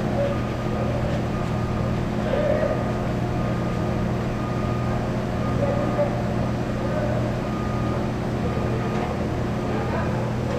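Steady hum of factory machinery with a short high electronic beep repeating about once a second.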